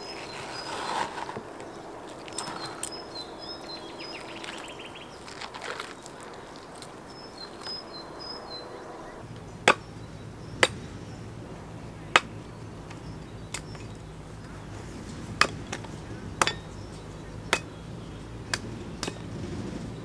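Sharp chopping strikes, about one a second, starting about halfway through, over a low steady hum; birds chirp faintly in the first half.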